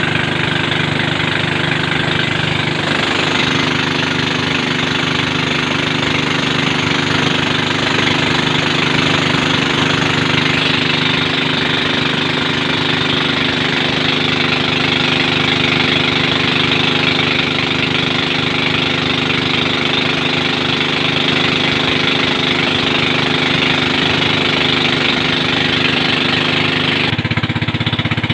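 Engine of a wooden motorboat running steadily at cruising speed, with the rush of water along the hull. The tone shifts slightly near the end.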